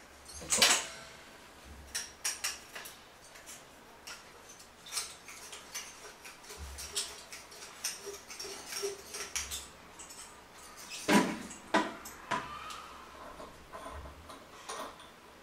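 Chrome toilet flush-valve parts being handled: scattered metal clinks and knocks, the loudest about half a second in and again around eleven seconds.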